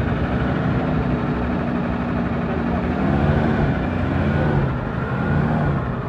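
Old Chevrolet inline-six engine running at idle, its note wavering a little about halfway through.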